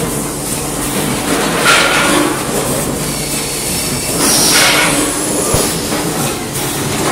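Vertical form-fill-seal packaging machine running: a steady mechanical clatter, with a short burst of hiss every two to three seconds.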